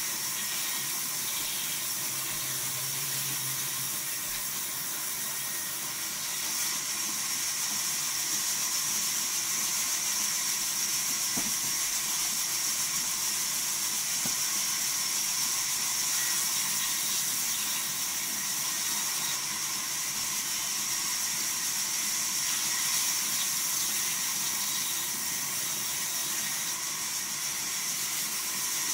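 Vertical band saw running and cutting through timber: a steady high hiss with a faint steady whine beneath it.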